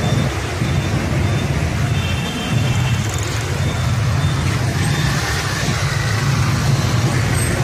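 Steady low rumble of motor traffic on a busy street, with no sharp impacts.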